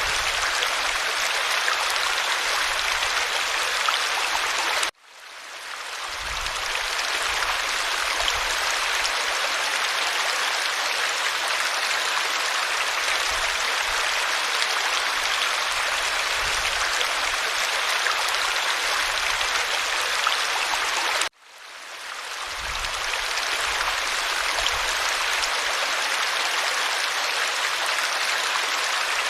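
Creek water running steadily over rocks, a dense hiss and splash. Twice it cuts out suddenly and fades back up over a second or two.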